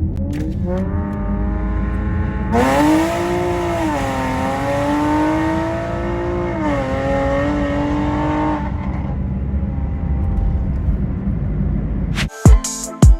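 Modified 400 hp Honda Accord's engine pulling hard under acceleration: the revs climb, drop back about four seconds in, climb again a few seconds later, then ease off to a lower steady drone. Music with a beat cuts in near the end.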